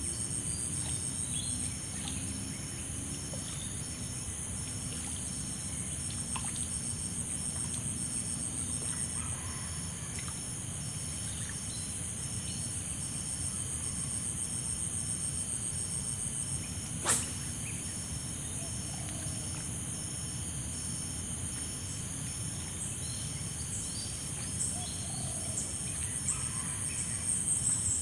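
Lakeside ambience of insects chirring in a steady high buzz, with a regular pulsing chirp, over a low rumble. A single sharp click comes a little over halfway through, and faint short bird calls are heard in the later part.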